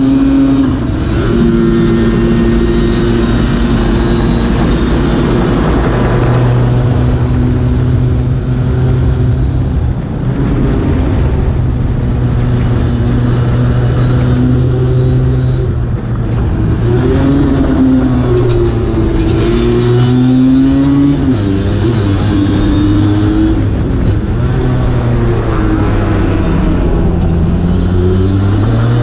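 Two-stroke Lambretta race scooter engine with an RB20 kit, running hard at high revs through a lap. The engine note dips briefly about ten and sixteen seconds in, then rises and falls in pitch as the revs change.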